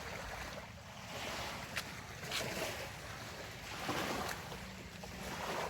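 Sea waves washing onto the shore in a steady surf, with a couple of louder washes about two and a half and four seconds in.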